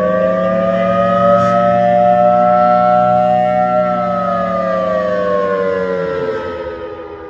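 Federal Signal Thunderbolt 1003 civil-defense siren sounding the attack signal. It is loud, its pitch climbing to a held peak through the middle, then falling away and fading toward the end.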